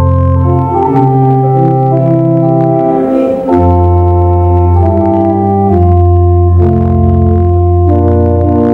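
Organ music: slow, sustained chords over deep held bass notes, the harmony shifting every second or two.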